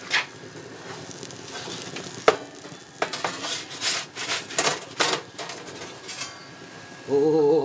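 Thin metal pizza peel scraping and clinking against the steel shelf of a rocket stove pizza oven as it is slid under a pizza and lifted out: a run of sharp clinks and scrapes, thickest in the middle few seconds, over a steady hiss.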